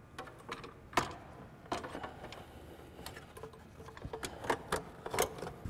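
Light, irregular clicks and taps of hands working in an engine bay: the PCM's mounting bolts, with washers, being started and threaded in finger tight.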